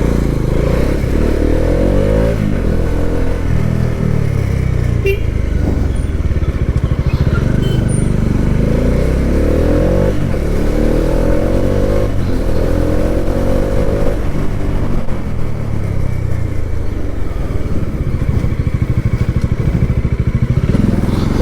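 Motorcycle engine running under way. Its pitch climbs several times as it accelerates and drops back between gear changes.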